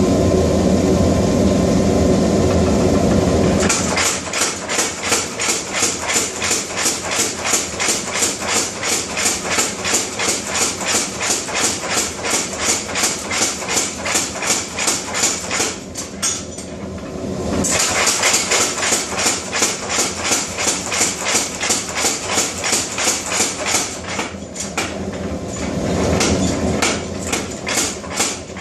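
Power hammer pounding hot steel: a dense, continuous run of blows for the first few seconds, then steady, evenly spaced strikes at about three a second. The strikes ease off briefly twice.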